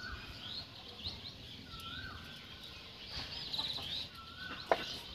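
Small birds chirping in the background, with a few clucks from a chicken, and one sharp knock near the end.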